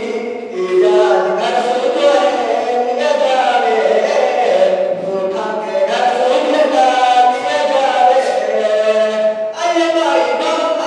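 A man singing a Mewati folk song into a microphone without instruments, in long wavering held notes.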